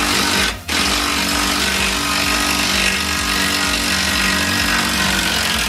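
A power tool running steadily, with a constant hum under a loud hiss, cutting out briefly about half a second in before running on.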